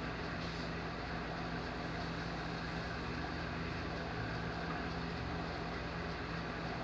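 Steady mechanical hum with a low, even tone, unchanged throughout: a motor-driven background machine such as a fan running, not the saw cutting.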